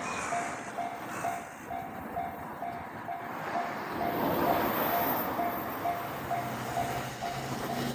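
Japanese level-crossing warning bell ringing in an even rhythm, about two strokes a second, over the rumble of a passing train.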